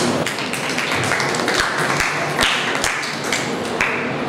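A run of irregular taps and soft knocks, some with a dull thud, over a steady hiss.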